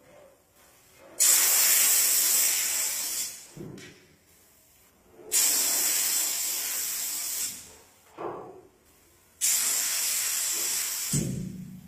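Hand-held compressed-air paint spray gun hissing in three separate bursts of about two seconds each, as the trigger is pulled and released. Each burst starts abruptly and fades off at the end.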